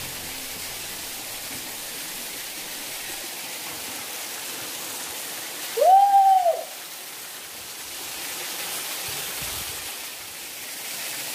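Steady rushing of a small waterfall splashing onto rocks. About six seconds in, one short rising-then-falling whoop is heard.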